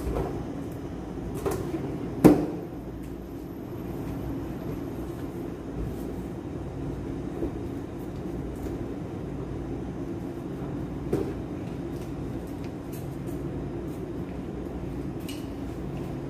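Handling noise from filling and tying latex balloons at a helium tank: scattered clicks and rubbing, with one sharp snap about two seconds in and a smaller one near eleven seconds, over a steady low room hum.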